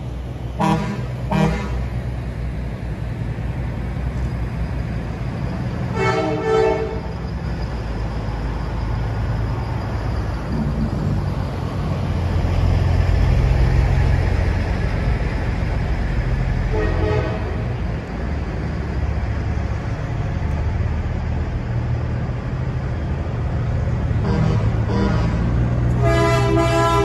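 Semi-truck diesel engines running as the rigs drive past, with short air-horn blasts: two about a second in, and more around six and seventeen seconds in. Near the end a loud, long air horn with several tones starts up.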